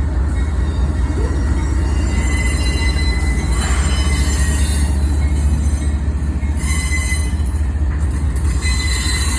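CSX intermodal freight train rolling through a grade crossing: a steady, loud low rumble, with thin high-pitched wheel squeal coming and going several times.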